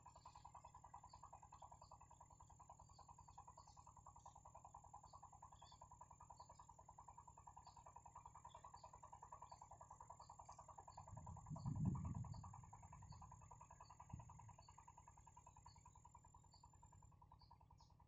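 Faint natural ambience: a steady, fast-pulsing drone with small high chirps repeating at an even pace. A low rumble about twelve seconds in is the loudest moment.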